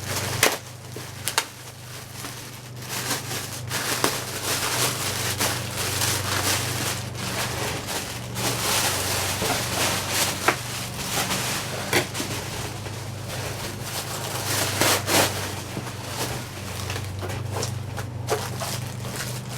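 Packaging crinkling and crackling as an item is pulled out and unwrapped, with many sharp crackles and rustles throughout.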